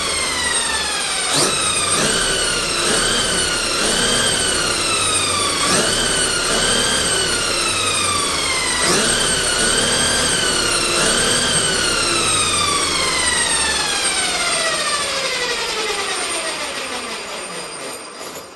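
A 1/5-scale electric RC car's motor and drivetrain whining as its wheels spin freely on stands under 8S power. The pitch shoots up with each of several throttle bursts and sinks as the wheels coast, ending in a long spin-down that fades away near the end.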